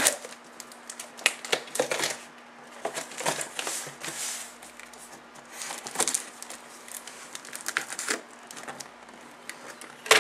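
Scissors cutting along the packing tape of a cardboard box, with the tape ripping and the cardboard flaps being pulled open: an irregular run of sharp clicks, scrapes and rips, with a loud snap near the end.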